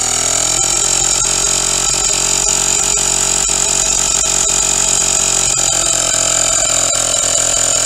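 Small 12-volt tyre repair kit compressor, powered from the car's cigarette-lighter socket, running steadily as it pumps sealant and air into a punctured tyre through the valve.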